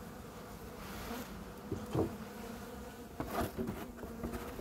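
Honeybees buzzing in a steady hum around an opened hive whose colony has been disturbed, with a few short knocks of hive woodwork being handled about halfway through.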